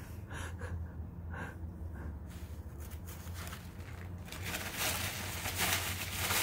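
A sheet of paper being picked up, folded and handled, its rustling coming in crisp bursts from about four seconds in, over a low steady hum; a few faint short sounds before it.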